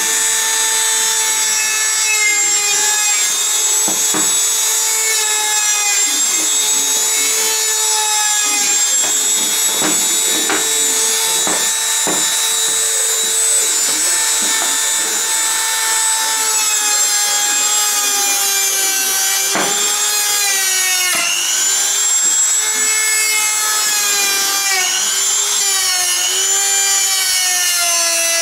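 Handheld rotary tool running at high speed with a small polishing wheel worked against the parts. It makes a steady high whine whose pitch sags and recovers as the wheel is pressed on and eased off, with a few brief scraping clicks.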